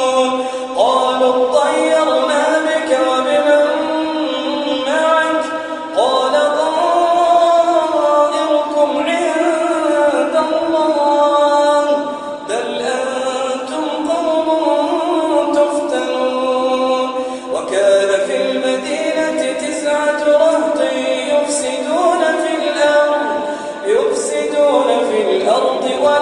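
A man's voice reciting the Quran in Arabic, unaccompanied, in the melodic tajwid style. The long phrases have held, ornamented notes, and a new phrase begins every five or six seconds.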